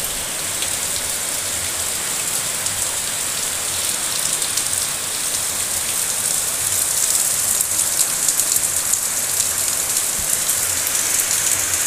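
Torrential rain falling: a steady, dense hiss with the patter of countless drops striking the wet ground, growing a little louder in the second half.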